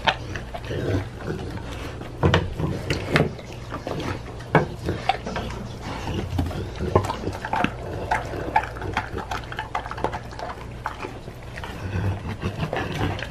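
Pit bull mix dog chewing and tearing at a piece of raw pork skin: wet smacking and chewing with many sharp, irregular clicks of teeth.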